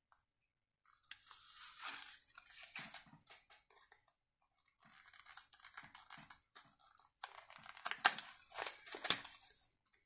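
Stiff plastic blister packaging of a lighter two-pack crinkling and crackling as it is handled, in two stretches of rustling with a few sharper crackles near the end.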